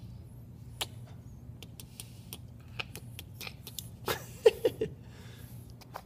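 French bulldog puppy snoring softly in its sleep, a steady low rumble with faint scattered clicks. A quick cluster of three short, sharp sounds about four and a half seconds in is the loudest part.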